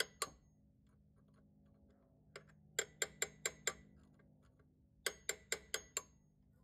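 Hammer tapping a flat-nose punch against the edge of a broken alternator tensioner bolt to turn it out. Two taps at the start, then a quick run of about six light metallic taps around three seconds in and five more about two seconds later, several with a brief high ring.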